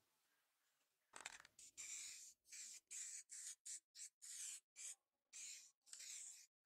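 Aerosol spray paint can hissing in many short bursts, starting about a second in, as paint is sprayed over a paper template on a steel leaf spring.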